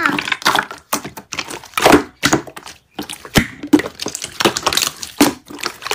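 A glossy slime squeezed and pressed by hands, giving off irregular sticky clicks, pops and crackles, with the loudest pop about two seconds in.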